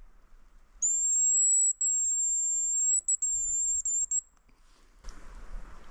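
Hazel grouse decoy whistle blown in one long, very high, thin whistle of about three and a half seconds, broken by a few brief gaps and wavering near its end, imitating the bird's call to lure it in.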